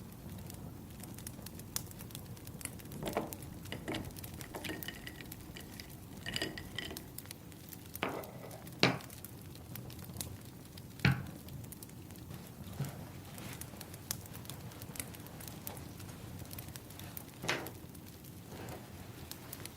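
Wood fire crackling: scattered small snaps and clicks over a faint hiss, with a few louder sharp pops or knocks, the strongest about nine and eleven seconds in.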